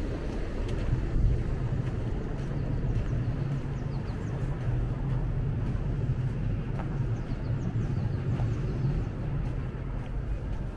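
A motor vehicle's engine running close by: a steady low hum that eases off near the end, with a few faint high chirps above it.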